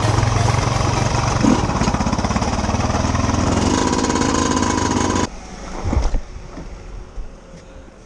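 Yamaha YZ125 two-stroke dirt bike engine running at low revs on a slow ride, with a short rev about one and a half seconds in. It cuts off suddenly about five seconds in, and a single knock follows about a second later.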